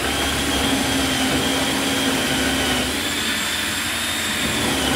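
Cordless drill running steadily at speed, boring a pilot hole into solid pine wall boards.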